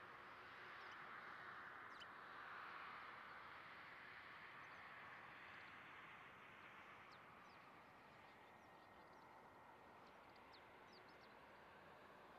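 Near silence: the faint, distant hiss of an Airbus A320's jet engines at taxi power, swelling a little over the first few seconds and then easing, with a few faint high bird chirps.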